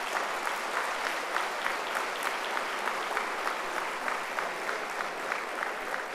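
A large audience applauding steadily, many hands clapping at once.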